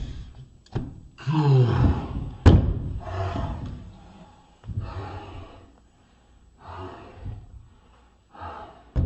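Wrestling sounds: several short grunts and shouts, and one loud slam about two and a half seconds in.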